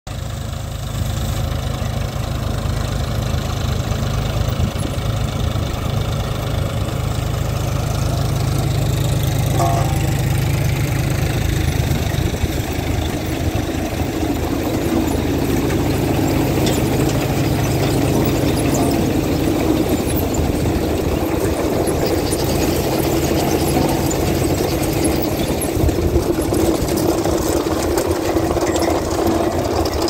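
John Deere 5105 tractor's diesel engine running steadily under load, pulling a potato harvester. From about twelve seconds in, the harvester's conveyor webs and shaking chains add a steady rattling clatter that becomes the louder part of the sound.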